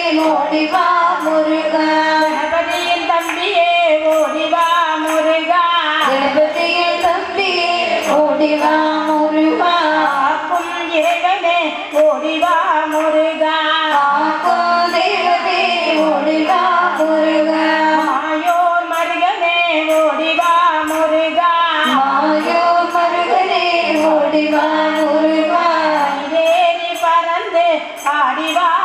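A group of women singing a Tamil devotional bhajan together into microphones, with a steady ticking beat keeping time. The melody repeats in phrases of about eight seconds.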